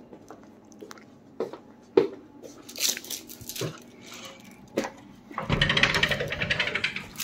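A few light knocks and handling clicks, then about five seconds in a rattling rumble for about a second and a half as the sheer curtain and the sliding balcony door are pushed open.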